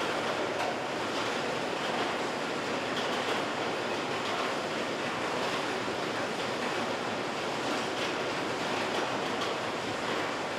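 HewSaw R200 sawmill line running: its chipper heads and circular saws processing small logs make a steady, dense noise.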